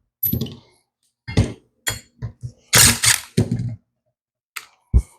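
Steel disc brake parts being handled: a series of separate metal clinks and knocks, with a longer rattling stretch near the middle.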